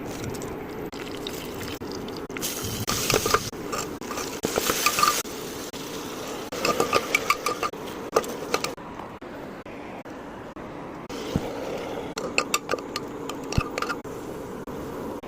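Cooking in a pot: a spoon stirring and clicking against the metal, over a steady sizzle and sloshing liquid, in several short stretches that change every few seconds.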